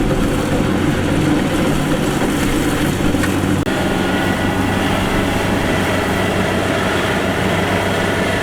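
Kubota DC-70 Plus combine harvester's diesel engine and machinery running with a loud, steady hum. There is a brief break in the sound about a third of the way in.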